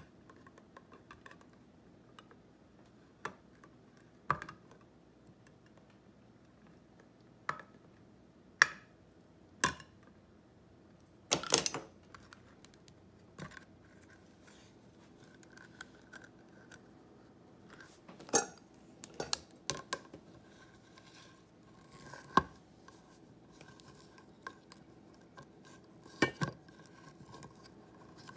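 White-handled manual can opener being worked onto a can of beans: scattered sharp metal clicks and clanks at irregular intervals as the opener and the can are handled and knocked against a stone counter, over a faint steady hum.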